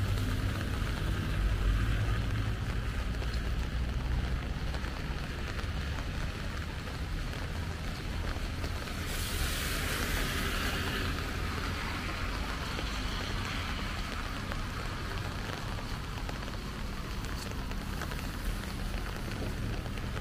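Steady rain falling on a wet street, with a low rumble underneath. About nine seconds in, a louder hiss swells for about two seconds and then fades.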